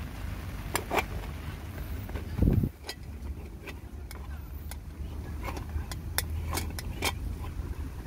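Metal clicks and clinks of a moka pot being assembled, the coffee basket set into the base and the upper chamber screwed onto it. There is a dull thump about two and a half seconds in, over a steady low rumble.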